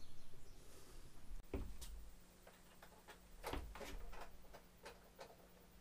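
Irregular light clicks and taps of small parts and tools being handled, with a couple of duller knocks about a second and a half in and again near the middle.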